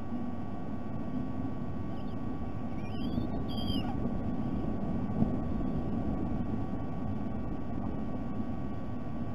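Steady low outdoor rumble with a faint constant electrical whine from the nest-camera feed. About three seconds in, a bird gives a brief whistled call that slides down and back up in pitch.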